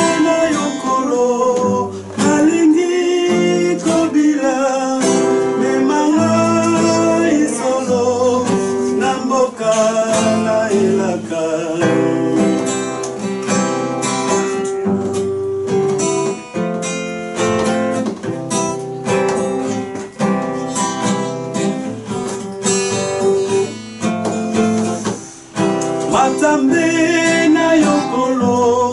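A man singing while strumming a cutaway acoustic guitar, the strummed chords running steadily under the voice.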